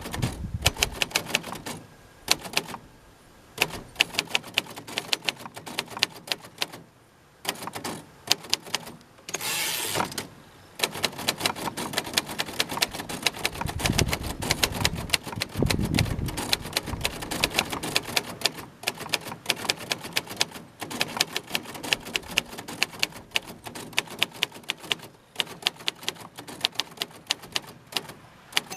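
1948 Royal Quiet De Luxe portable typewriter being typed on: runs of sharp keystroke clacks, several a second, broken by short pauses. About a third of the way in comes a brief sliding rush, the kind made when the carriage is returned.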